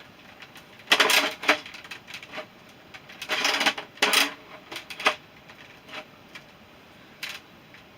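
Plastic clacks and rattles of a Nerf Dreadbolt crossbow being primed and loaded with a foam arrow, in several separate bursts about a second apart. The mechanism is not yet catching the arrow properly.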